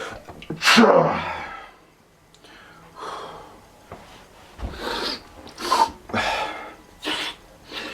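A person in an allergy sneezing fit: one big sneeze about a second in, which is the loudest sound here, then a string of shorter sneezes and sharp breaths over the last five seconds.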